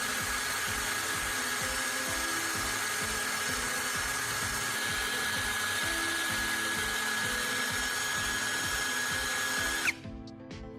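Power drill running steadily with a high motor whine and a gritty sanding hiss as a carbon rod spinning in its chuck is ground to a point against sandpaper. It stops abruptly near the end.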